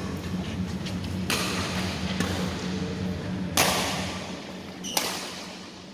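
Badminton rackets striking a shuttlecock in a doubles rally, sharp hits roughly a second apart, each followed by a short hiss, over a steady low hum.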